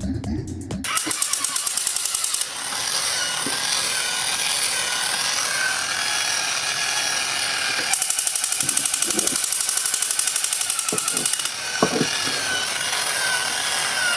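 A small motor whirring steadily, with a rapid rattle and a wavering whine, and a few light knocks near the end. It cuts off suddenly.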